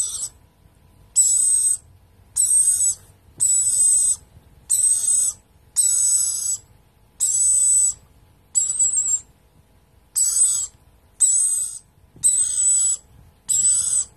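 Baby rainbow lorikeet giving a long run of short, shrill screeching calls, about one a second: the repeated begging calls of a hand-reared chick at feeding time.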